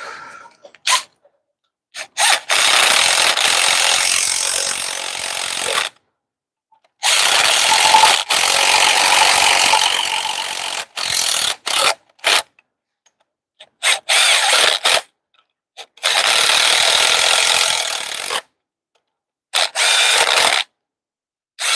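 Impact gun running bolts down into a DT12 transmission's aluminium housing: a string of runs, several lasting a few seconds and others short blips, each starting and stopping sharply. The bolts are only being brought snug against the housing before final torquing to 25.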